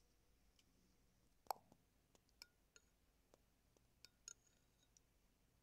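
Faint clinks and taps of a metal spoon against dishes. One clearer clink comes about a second and a half in, then a handful of lighter ticks over the next few seconds.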